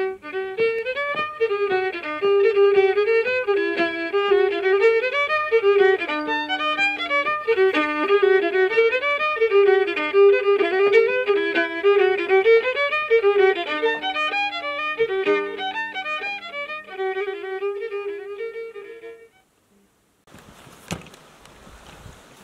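Music: a fiddle playing a tune, stopping about nineteen seconds in. After a moment's silence, wind noise on the microphone comes in near the end.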